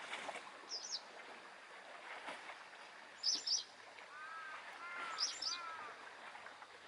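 Small birds chirping in short, high twittering bursts about three times, with a lower call repeated three times in the middle, over the gentle, steady lapping of harbour waves.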